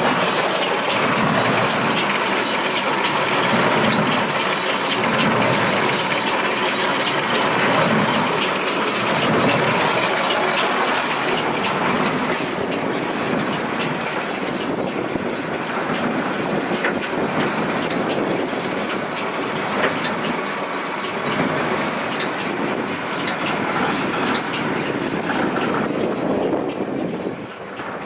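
Case IH 8575 large square baler running, a steady mechanical clatter full of rapid clicks and rattles from its working parts.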